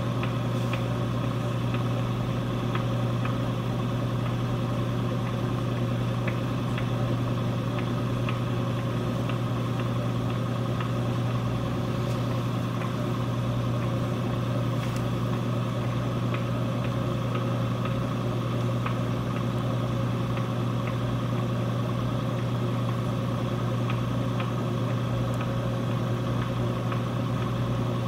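Electric potter's wheel running at a steady speed: a constant low motor hum, with a few faint ticks.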